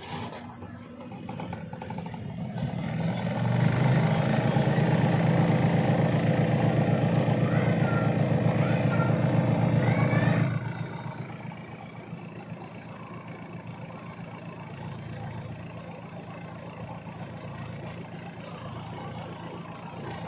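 Washing machine motor humming: it builds up over the first few seconds, runs loud and steady, then drops off sharply about ten seconds in to a quieter running sound.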